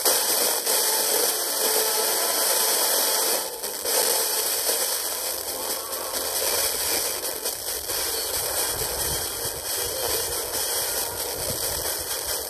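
FM radio receiver hissing with static on a weak signal during a band scan: a steady rush of noise with a few short crackles.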